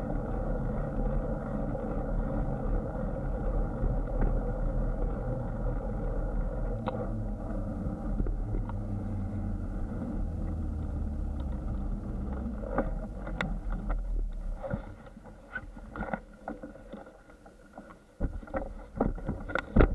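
Bicycle rolling along a concrete sidewalk, heard from a camera on the bike or rider: a steady rumble of tyres and wind that falls away about fourteen seconds in, followed by scattered sharp clicks and knocks as the bike rattles over the pavement.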